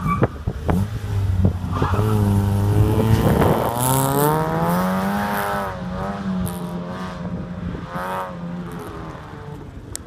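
Mazda MX-5 Eunos Roadster's 1.8 four-cylinder engine pulling hard away from the start line. The revs hold steady for a few seconds, then climb about halfway through and stay high while the sound fades as the car gets farther away.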